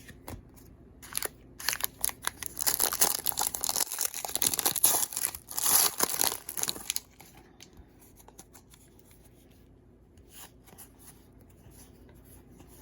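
A plastic-foil baseball card pack being torn open and crinkled, loud for about six seconds, then faint rustles and taps of the cards being handled.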